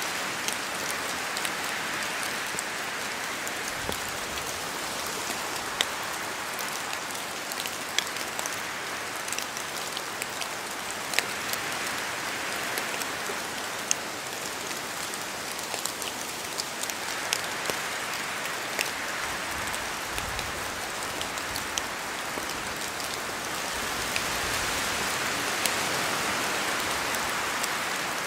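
Steady rain falling in a spruce forest, with many separate drops striking close by as sharp ticks. Wind swells through the trees now and then, loudest near the end.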